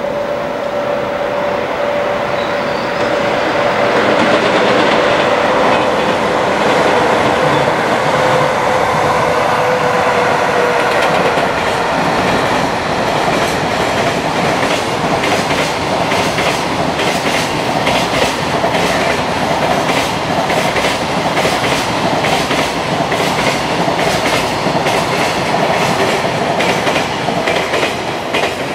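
Freight train passing at speed: a steady whine that slowly drops in pitch over the first ten seconds or so, then a long, rapid clickety-clack as the container wagons' wheels run over the rail joints.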